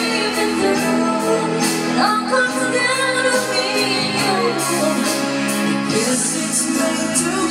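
Background pop music with a woman singing over a steady beat.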